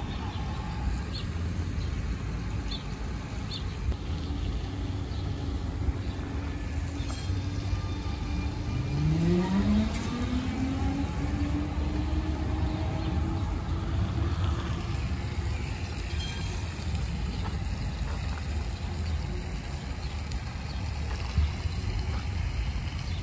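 STIB 2000-series low-floor electric tram with a steady motor whine, which about nine seconds in turns into a rising whine as the tram pulls away and gathers speed, over a low rumble.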